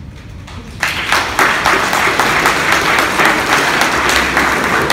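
Audience applauding. The clapping breaks out about a second in and carries on as a dense patter of many hands.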